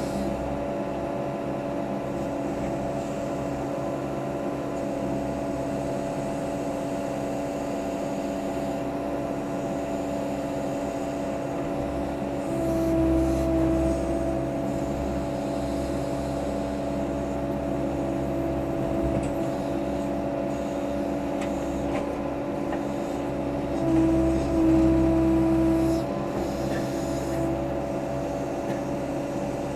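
Case 580C backhoe's engine running steadily, heard from inside the cab while the backhoe digs. It swells louder twice, briefly, about halfway through and again near the end, as the boom and bucket work.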